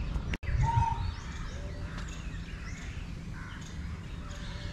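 A flock of small birds chirping and calling together, a busy mix of short high chirps throughout, over a low rumble. The sound drops out for an instant near the start.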